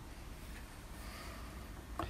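Quiet room tone with a faint steady hiss and no distinct knocks or clicks.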